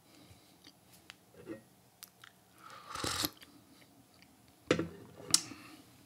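Mouth sounds of someone tasting tea: small tongue and lip smacks, a short slurp about three seconds in, and two sharper clicks near the end.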